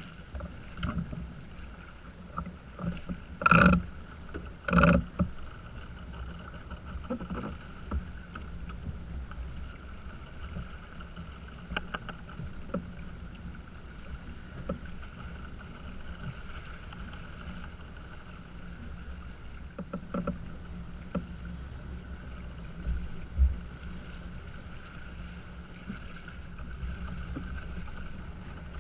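Steady rush of wind and water around a small sailing yacht under way, with a low rumble on the microphone. Two loud thumps come about three and a half and five seconds in, with a few lighter knocks later.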